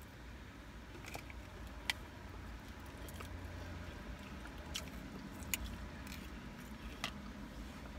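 A person chewing and biting fried chicken close to the microphone, with several sharp wet mouth clicks and smacks, over a low steady rumble inside a car.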